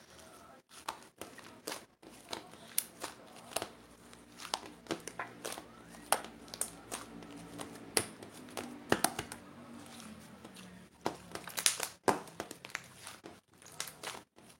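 Irregular crinkling and crackling made up of many sharp clicks, like something being crumpled or handled. A faint low hum sits under it through the middle.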